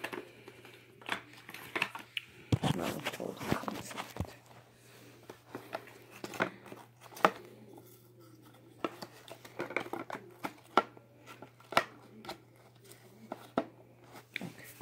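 Hands working over a Shark Rocket DuoClean vacuum's removed brush roll, pulling off tangled hair and fuzz: irregular small clicks, scrapes and plastic knocks.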